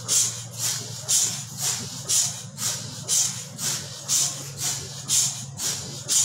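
MRI magnet's helium cold head running: a rhythmic hissing chuff about twice a second over a steady low hum, the sign of the cryocooler working to keep the magnet cold.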